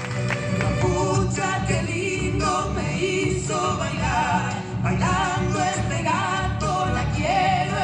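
Argentine folk song for the gato or chacarera dance: a voice singing a melody over a steady rhythmic instrumental accompaniment.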